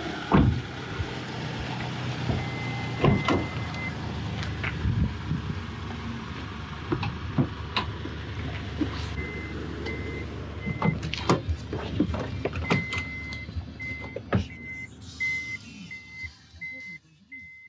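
Toyota minivan's power sliding-door warning beeper: a held tone early on, then a run of short even beeps, about two or three a second, while the door works. Knocks and thumps of people climbing in and handling the door and seats run throughout.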